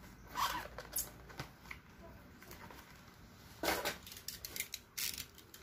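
Cardboard power bank box and its contents being handled: short rustling and scraping sounds with light taps, the loudest a little past halfway.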